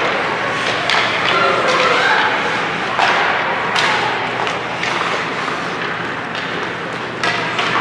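Scattered sharp knocks and taps over a steady haze of indistinct voices, the sound of an ice hockey game in an arena.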